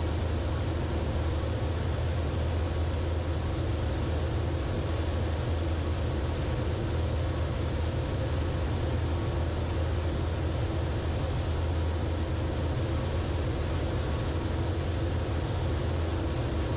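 Steady drone of a Zenith CH 650 light sport aircraft's direct-drive, air-cooled four-cylinder 118 hp engine and propeller at economy cruise, heard from inside the cockpit: an even low hum with rushing air noise over it.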